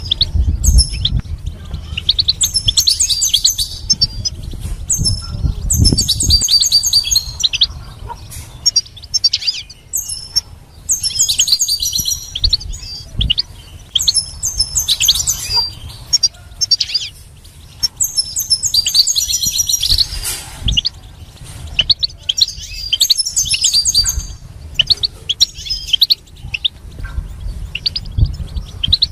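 European goldfinch singing: bouts of rapid, high twittering and trilled notes, each a second or two long, with short pauses between. A low rumble runs under the song for the first several seconds.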